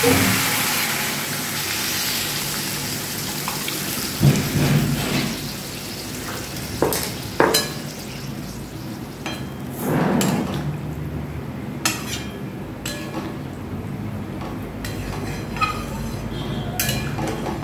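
Water hitting a hot aluminium kadai of fried potatoes and spices, sizzling loudly at first and dying down over the first few seconds. After that the curry heats quietly while a metal spatula scrapes and clinks against the pan several times.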